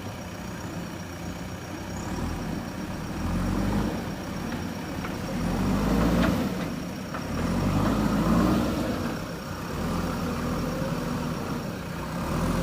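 Diesel engines of JCB 3DX backhoe loaders running and revving under load in repeated surges as they work, with a few sharp knocks about six and seven seconds in.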